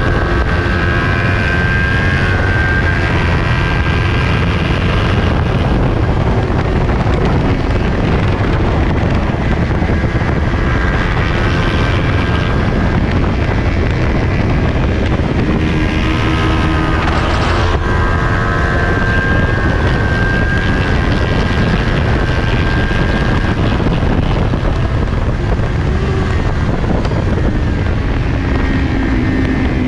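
Heavy wind rush on the bike-mounted camera over the 2020 Kawasaki Ninja 400's parallel-twin engine running hard at race speed, its pitch rising and falling as the rider works through the corners.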